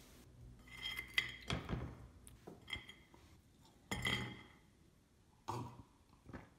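Several light clinks and knocks of ceramic plates and dishes being handled on a tabletop, some with a short ring.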